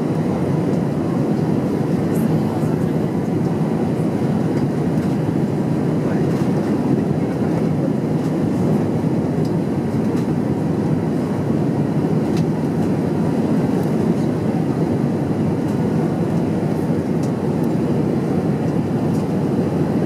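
Steady cabin noise inside an Airbus A320 airliner on approach: the engines and the airflow past the fuselage make an even, unbroken rumble.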